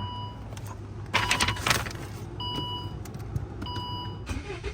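2017 Volvo XC60 being started: a short burst of cranking and catching about a second in, over a steady low hum. A beeping chime sounds several times.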